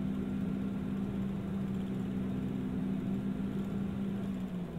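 Bombardier Q400's Pratt & Whitney PW150A turboprop and six-blade propeller running at ground idle, heard from inside the cabin as a steady droning hum. Near the end its pitch begins to fall as the engine winds down.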